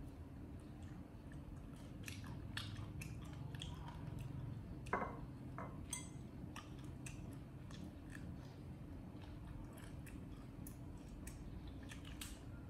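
Monkey chewing food: a scattering of soft, wet smacks and clicks over a steady low hum. About five seconds in comes one brief falling squeak.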